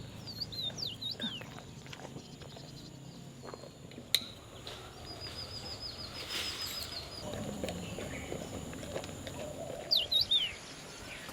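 Small birds chirping: quick high up-and-down call notes about a second in and again near the end, with a fast even trill in the middle. A single sharp click about four seconds in.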